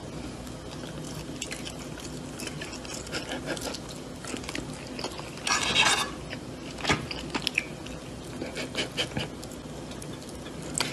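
A metal fork clicking and scraping on a plate, with chewing, over a steady room hum; a louder scrape about halfway through.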